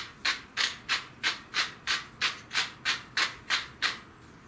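Wooden salt mill being twisted over a saucepan, grinding salt in even strokes about three a second. The strokes stop shortly before the end.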